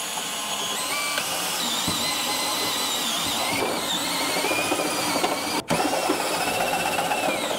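Cordless drill with a step bit cutting a hole through a 1966 Mustang's steel firewall: a steady motor whine that wavers in pitch as the bit bites. It cuts out for a moment a bit past halfway, then runs on.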